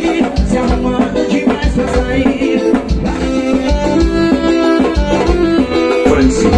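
Live forró band music: a singer over keyboard and a steady low drum beat, at full dance volume.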